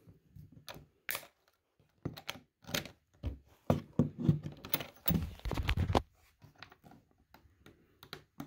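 End-cutting pliers gripping and working at a braided steel cable seal on a plastic hard-case latch: irregular clicks and scrapes of metal jaws on wire and plastic. They are busiest from about two to six seconds in and thin out after that, as the tough cable resists the cutter.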